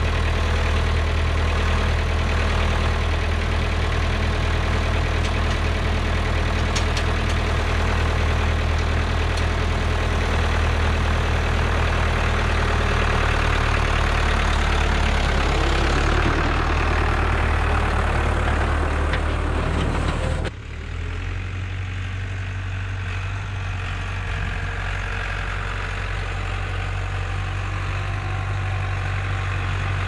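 International Harvester 784 tractor engine running steadily at low speed. About two-thirds through, the sound drops suddenly and a fainter, steady engine hum continues.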